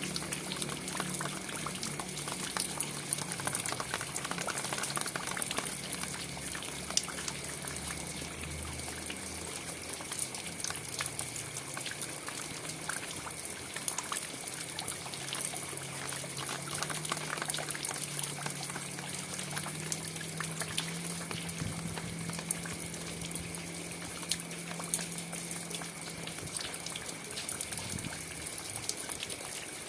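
Steady rainfall, an even hiss of water dotted with many individual drops heard as small sharp ticks.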